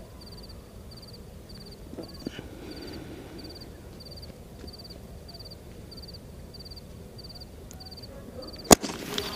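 Steady rhythmic chirping of night creatures, about twice a second, over a quiet background while the firework's fuse burns. Near the end a single sharp bang as the Anil sky-shot firework fires.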